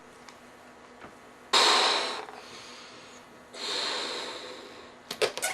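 Two long, breathy exhalations of a person out of breath. The first starts suddenly and the second builds more slowly. A few short clicks come near the end.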